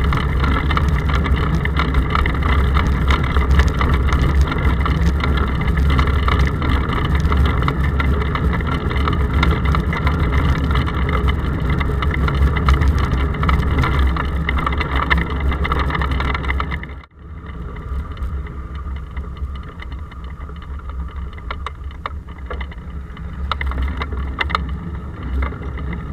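Steady rumble of road vibration and wind picked up by a bicycle-mounted action camera inside its case, heavy in the low end. About two-thirds of the way through it drops abruptly to a quieter level and carries on.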